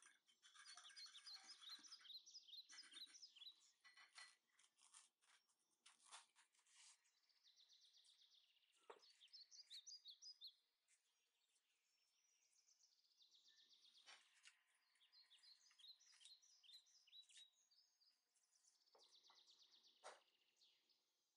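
Faint bird chirps and trills, repeated through the whole stretch. In the first several seconds a wire whisk ticks quickly against a glass bowl as it beats batter.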